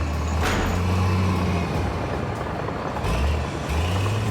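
Caterpillar D10 bulldozer's diesel engine running low and heavy under load as it starts towing a dead loader on a tow bar. A sharp noise sounds about half a second in, and the engine note dips briefly near the three-second mark before picking up again.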